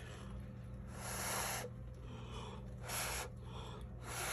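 A person blowing on wet acrylic pour paint to push it across the surface: three puffs of breath, the first the longest at about a second.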